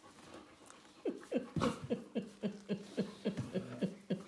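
A woman laughing out loud, a quick run of short falling 'ha' sounds about four a second, starting about a second in.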